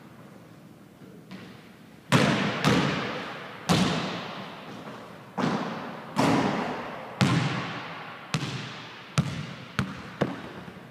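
Basketball bouncing on a hardwood gym floor: about ten sharp thuds, each trailing off in the long echo of the empty gym, the last few coming closer together.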